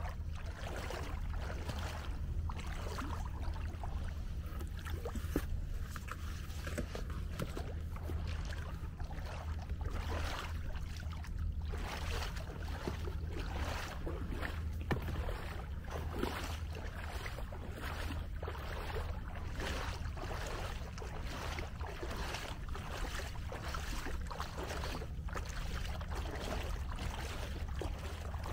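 Kayak paddle strokes dipping and splashing in the water, repeated about once a second, over a steady low rumble of wind on the microphone.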